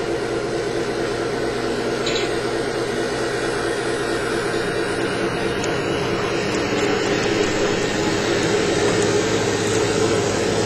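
N scale model coal train, headed by two Alco diesel models, running on the layout: a steady motor hum and rolling noise that grows a little louder in the second half as the train comes close.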